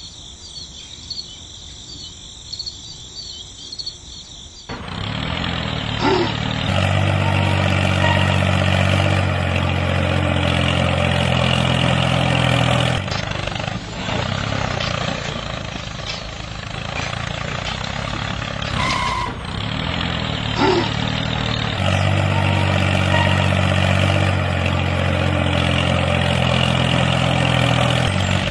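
Tractor engine running steadily. It comes in about five seconds in, is strongest from about seven to thirteen seconds, eases between about thirteen and twenty-one seconds, then is strong again near the end. Before the engine comes in, a high twittering like birdsong is heard.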